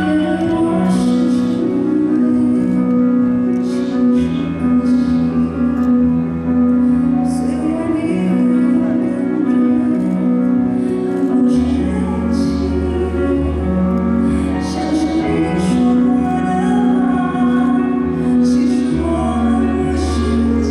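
A woman singing into a microphone over instrumental backing music.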